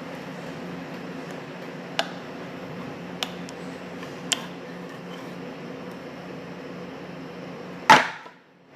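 Steady low machine hum, with three light clicks and one loud knock near the end, after which the hum briefly cuts out.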